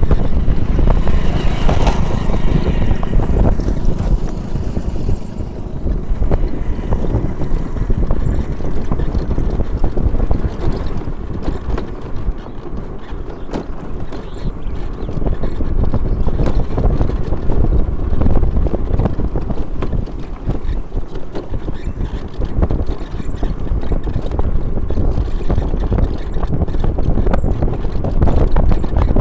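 Wind rushing over the microphone with the low rumble of a moving vehicle, full of rapid crackles and buffets.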